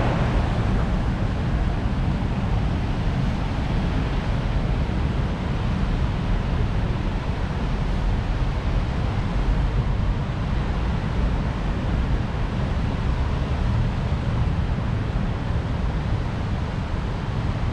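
Heavy rain falling in a steady hiss, with wind rumbling on the microphone.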